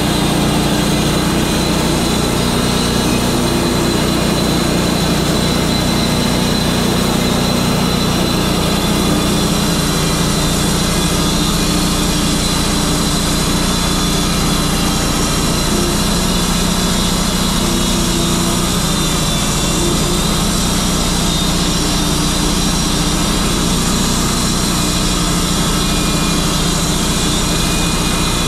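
Wood-Mizer LT35 portable bandsaw mill running steadily under load as its band blade saws lengthwise through a pine log, the engine note holding even throughout.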